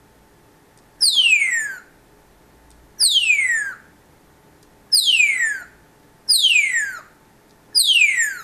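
An African grey parrot whistling: five loud whistles about every one and a half seconds, each sliding steeply down in pitch.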